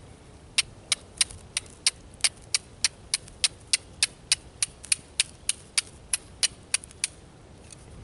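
A C-shaped steel fire striker struck repeatedly against the edge of a flint holding char cloth, about twenty sharp clicks at roughly three a second that stop about seven seconds in, throwing sparks to catch the char cloth.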